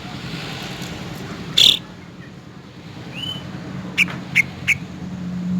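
Cucak rante bird calling: one loud, sharp note about a second and a half in, a short arched whistle a little later, then three quick sharp chips near the end, over a steady low hum.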